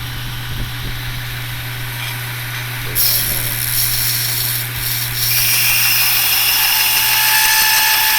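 Modified Grizzly 2x72 belt grinder running with a steady motor hum. About three seconds in, a piece of scrap iron is pressed against the belt and a loud grinding hiss starts. It breaks off briefly around five seconds, then carries on.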